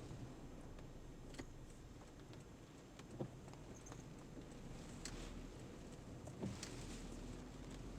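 Low, steady rumble of a car heard from inside the cabin, with a few sharp knocks at irregular intervals.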